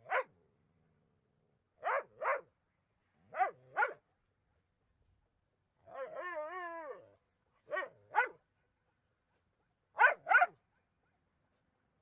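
A dog barking in quick double barks, four pairs after a single opening bark, each pair separated by a second or more of silence. About six seconds in, one longer wavering call of about a second comes between the barks.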